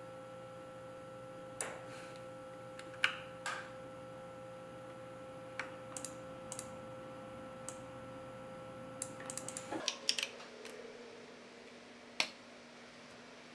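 Scattered single clicks of keys on a computer keyboard, with a quick run of presses about nine to ten seconds in and one more click near the end. Under them a steady electrical hum of several tones cuts off suddenly just before ten seconds in.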